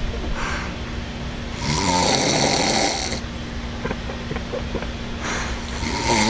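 A man snoring in his sleep: two long snores of about a second and a half each, some four seconds apart, with a fainter breath between them. A faint steady hum runs underneath.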